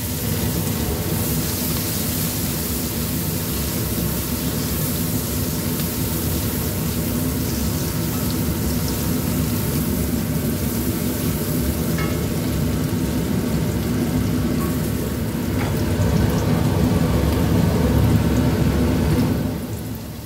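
Sliced garlic and shallots sizzling in hot oil in a wok, stirred with a spatula, with a brief clink of the spatula on the pan about midway. A steady low rumble runs underneath and stops just before the end.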